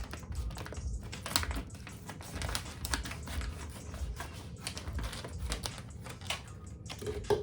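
Scissors cutting open product packaging: a dense, irregular run of snips and crackles, with a louder snap near the end.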